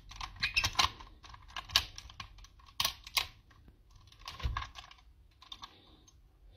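Hard plastic toy parts clicking and clattering as a Power Rangers eagle zord is fitted onto a larger zord as its belt: quick irregular clicks, busiest in the first three seconds, with one duller knock a little past halfway and only scattered clicks after.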